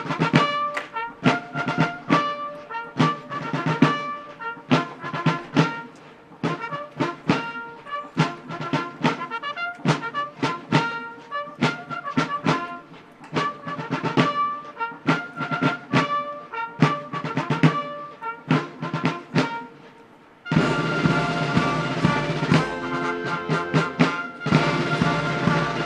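Military band music: brass and drums playing a march in short, detached notes. About twenty seconds in, the full band comes in and the sound becomes fuller and more sustained.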